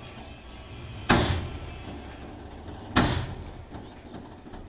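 Heavy metal bangs from a Tata tipper truck's raised dump body as it unloads soil, two about two seconds apart and a third starting at the very end, each ringing out briefly. Under them runs the low, steady rumble of the diesel engine idling.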